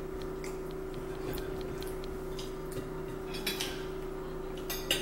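Light clicks and clinks of plates and food being handled at a breakfast table, with a brighter cluster of clinks about three and a half seconds in and again near the end, over a steady low hum.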